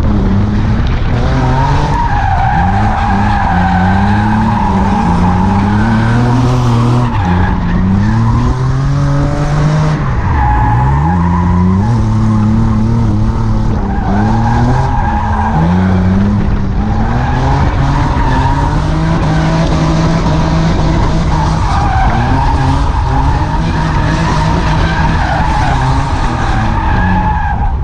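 Nissan 350Z drift car on a drift run: the engine revs up and drops again and again as the throttle is worked, and the tyres squeal steadily through long slides, breaking off briefly a few times between them.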